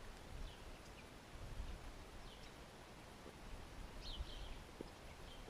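Small birds chirping a few times in short, high, falling notes over a low, uneven outdoor rumble.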